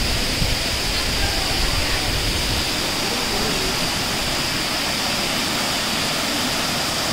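Waterfall rushing steadily, water pouring down onto rocks. A low rumble underneath fades out about two and a half seconds in.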